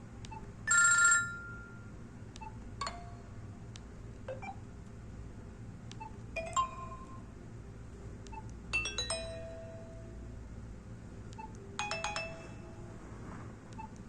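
A preloaded BlackBerry Curve 9300 ringtone playing through the phone's small speaker: a sparse, chime-like tune of separate bell-like notes every second or two. The loudest is a bright ringing chord about a second in, over a faint low hum.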